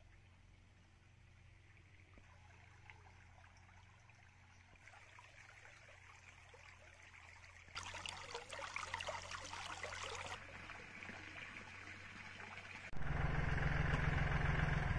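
Shallow stream trickling over stones, faint, over a steady low hum. About eight seconds in, a louder rushing hiss lasts about two seconds. About two seconds before the end, a farm tractor's engine cuts in suddenly, running loud and steady.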